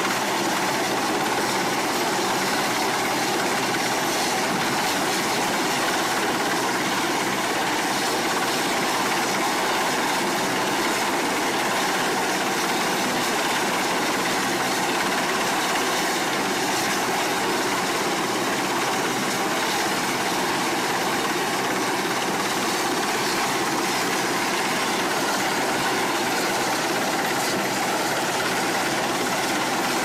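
Westland Sea King helicopter hovering close overhead, its rotors and turbines making a steady, loud drone that does not change.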